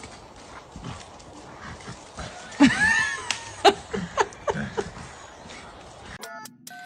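A dog vocalizing: a rising-and-falling whine about two and a half seconds in, followed by three short yelps.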